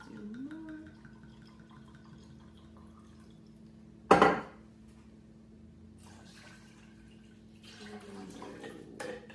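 Rum pouring from a glass bottle into an emptied metal can for a moment, then a single loud knock about four seconds in. Near the end the rum is poured from the can into a blender jar.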